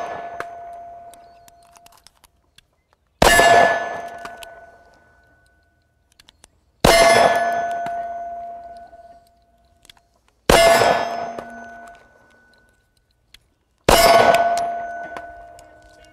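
Kahr CW9 9 mm pistol fired four times in slow, deliberate shots about three and a half seconds apart. Each shot is followed by a steel target ringing with a clear metallic tone that fades over a second or two.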